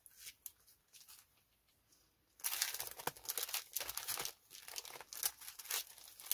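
Clear plastic packaging of craft stamps and cutting dies crinkling as it is handled: a few light crackles, then dense, steady crinkling from about two and a half seconds in.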